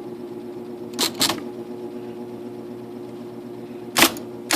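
IBM Selectric electric typewriter with its motor humming steadily and its mechanism clacking as it cycles: a quick double clack about a second in and two more clacks near the end. The strokes come from testing typing and correction backspace on a machine that sometimes misses the backspace, which the repairer suspects is caused by a worn transport pulley.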